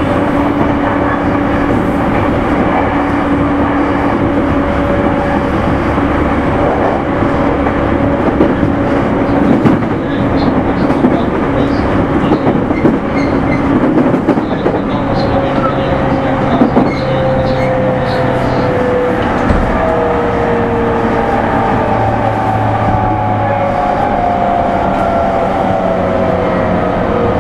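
Inside a JR E231-series commuter car: wheel and rail running noise with the motor car's VVVF inverter and traction motor tones. From about halfway through, the tones slide steadily down in pitch as the train slows, the falling whine that earns this car's inverter its 'crashing' (墜落) nickname.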